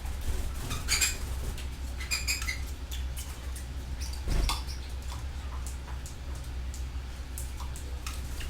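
Canaries giving short, scattered chirps, with small clicks and pattering, over a steady low hum.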